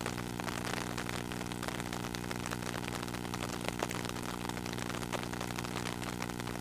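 An engine running steadily with an even hum, under rain pattering on the water.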